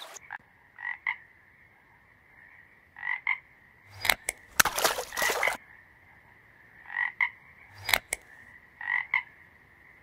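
Frog croaking in short calls, mostly in pairs, every second or two over a faint steady high drone. There are a few sharp clicks and a louder noisy burst around the middle.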